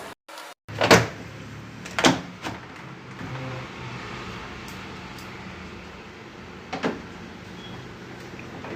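Knocks and clunks of a fully automatic washing machine's cover panels being fitted back on: two sharp knocks about a second and two seconds in, a lighter one just after, and another near the end, over a steady low hum.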